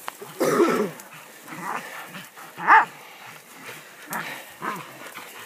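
Hog-hunting dogs barking in short, separate barks about five times, the sharpest and loudest a little before halfway.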